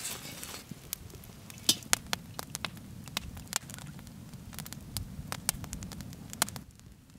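Wood fire crackling, with irregular sharp snaps and pops over a low rumble that drops away near the end.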